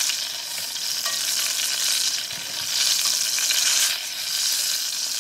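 Chicken thighs frying in hot oil in a big pot: a steady, loud sizzle that swells and eases as pieces are lifted out with metal tongs.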